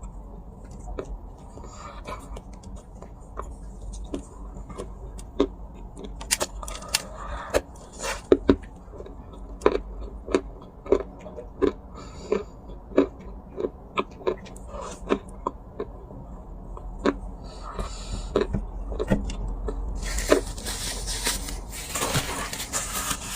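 Dry clay crunching: a run of sharp, separate cracks, a few a second. About twenty seconds in, the cracks give way to a few seconds of dense, gritty crumbling.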